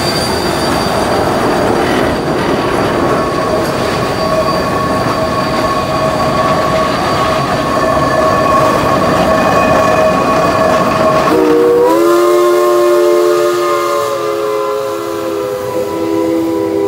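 Shay geared steam locomotives running past, with a steady high tone over the noise of the engines and wheels. About eleven seconds in, a chime steam whistle blows a chord of several notes that rises slightly in pitch as it opens, then holds.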